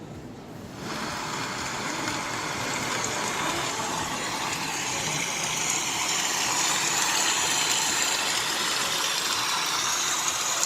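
Soundtrack of a Dolby demo video playing from Samsung Galaxy Note 9 phone speakers: a steady rushing noise that comes in about a second in and slowly grows louder.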